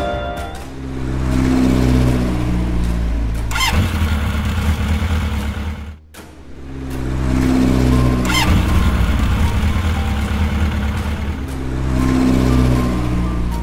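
A motorboat engine sound effect: a motor running, its revs swelling and easing off, broken by a short drop about six seconds in before the same run of revs starts again.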